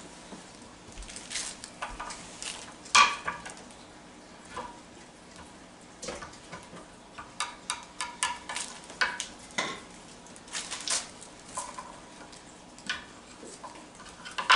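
Irregular clicks and knocks of hand food prep: a knife and utensils tapping on wooden and plastic cutting boards and the granite counter while garlic and oregano are prepared. One sharper knock comes about three seconds in, and a quick run of clicks follows in the second half.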